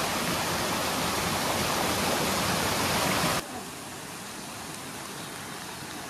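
Small forest waterfall pouring into a rocky pool: a steady loud rush of falling water that cuts abruptly to a quieter, more distant rush of the cascade about three and a half seconds in.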